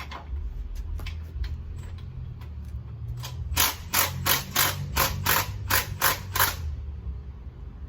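Ratchet wrench clicking, a few faint clicks and then a run of about ten sharp, even clicks at roughly three a second that stops short, over a steady low rumble.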